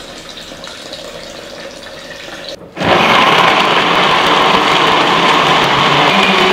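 Cold water poured from a jug into a blender jar. After a brief break about two and a half seconds in, an electric blender starts and runs steadily, much louder, blending dates, yogurt and water into a drink.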